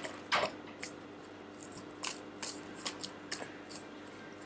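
Oracle cards being handled and shuffled in the hands: a scattered series of light, sharp card flicks and snaps, about a dozen, over a faint steady hum.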